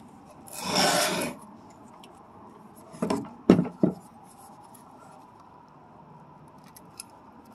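Bare speaker wire being handled and pushed into the spring-clip terminals of a Polk Audio speaker: a rubbing rustle about half a second in, then a few sharp clicks about three to four seconds in, with a faint steady hum underneath.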